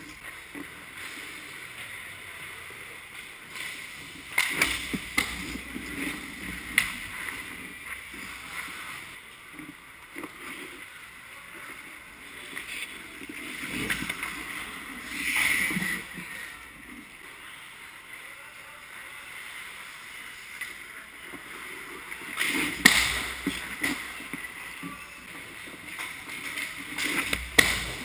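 Ice hockey play heard close to the goal: skate blades and goalie pads scraping and hissing on the ice, broken by several sharp clacks and knocks of sticks and puck, the loudest about two thirds of the way in.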